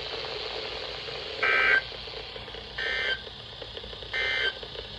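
NOAA Weather Radio's SAME end-of-message data code: three short, identical two-tone data bursts about 1.4 seconds apart, sounding through a weather radio's speaker. They mark the end of the warning broadcast.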